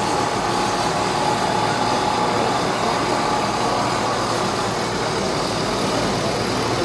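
An engine running steadily at idle.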